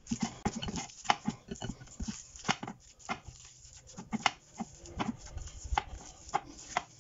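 Bare hands kneading and squeezing minced beef and pork, bound with egg and breadcrumbs, in a glass bowl: a run of irregular short squishes and slaps.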